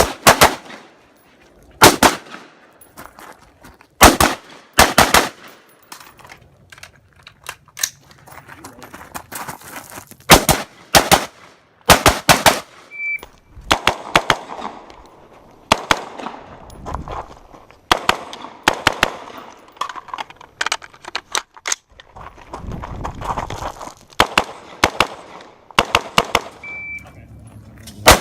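Rifle shots fired singly and in quick pairs and strings during a timed stage of fire, with a shot timer's short high beep about halfway through and again near the end.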